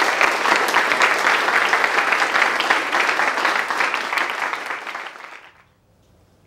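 Audience applause: many hands clapping together, fading out about five seconds in.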